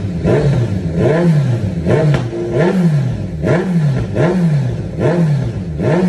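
Kawasaki Z900's inline-four engine, breathing through an aftermarket exhaust, revved in a quick series of throttle blips, each climbing sharply and dropping back, a little more than one a second.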